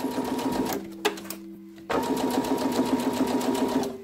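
Electric sewing machine stitching a zipper onto oilcloth: a rapid, even stitching rhythm over the motor's whine. About a second in it drops to a slower, quieter run. It picks up to full speed again just under two seconds in and stops just before the end.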